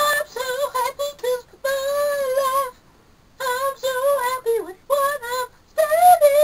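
A young man singing to himself unaccompanied in a high-pitched voice, in short wavering phrases with a brief pause a little under halfway through.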